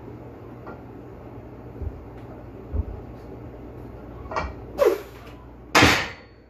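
A weightlifter pressing a loaded axle bar overhead, over a steady low hum. There are a couple of soft low thumps, then a short strained grunt falling in pitch, and near the end a loud, sharp burst of breath.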